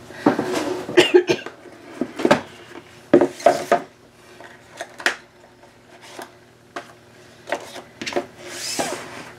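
Scattered knocks and clicks of small objects being handled and set down on a tabletop, with a short rustle near the end.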